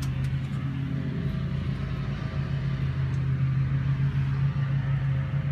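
A steady low mechanical hum, like an engine or motor running, holding one pitch throughout, with a few faint clicks about half a second in.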